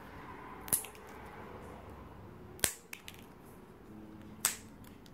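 Scissors snipping a plastic drinking straw into short pieces: three sharp snips, about a second and three quarters apart.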